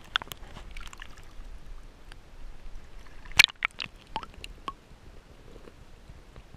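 Underwater sound picked up by a submerged camera: a low rumble of moving water with scattered sharp clicks and a few short bubbly blips, the loudest click about three and a half seconds in.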